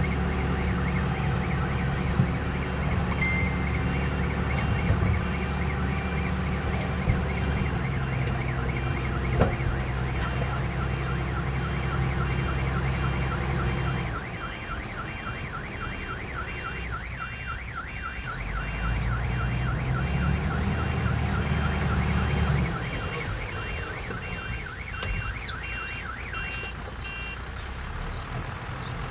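Heavy earthmoving machine's engine running steadily, with a reversing alarm beeping over it. The engine drops away about halfway through, comes back for a few seconds, then drops again while the beeping carries on until near the end.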